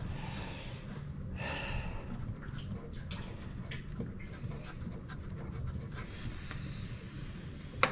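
A man breathing hard and panting as he strains with a tool, with a few small metallic clicks.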